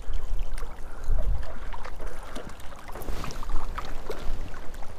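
Wind buffeting the microphone, a steady low rumble, over small waves lapping at a rocky shoreline, with a few light clicks.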